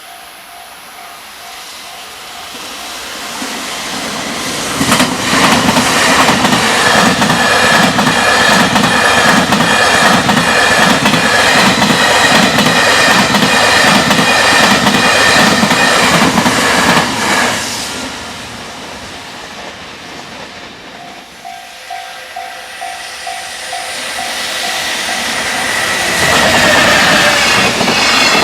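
A freight train passes at high speed, its wheels clattering over the rail joints in a quick, even rhythm that builds over several seconds and fades after about twelve seconds of full passage. A level-crossing warning bell dings steadily at the start and again in the lull. A second train comes in loud near the end.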